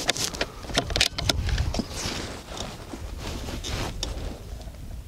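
Wind rumbling on the microphone, with a few light clicks and rustles as the shooter settles in behind the rifle. There is no gunshot.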